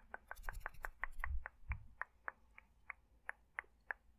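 Dry mouth and tongue clicks close to the microphone, a quick run of about five a second that slows to about three a second. A few low muffled bumps come about a second in.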